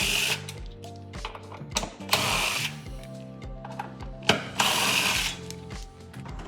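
Background music with a steady beat, with three short noisy bursts.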